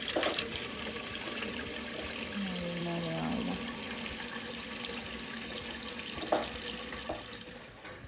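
Water running from a kitchen faucet into a galvanized metal bucket sitting in a stainless steel sink, as a steady splashing hiss. There is a brief low hum a few seconds in and a single sharp knock about six seconds in, and the running water dies away near the end.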